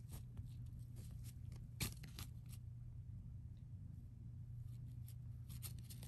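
Faint scattered rustling and scratching of a fabric cat tunnel as a kitten paws at a hanging pom-pom toy, with one sharper tick about two seconds in, over a steady low hum.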